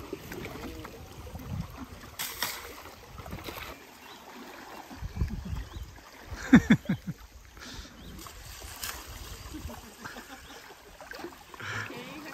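River water splashing and sloshing as elephants are bathed in it, with a few sharper splashes. A brief voice sounds about halfway through.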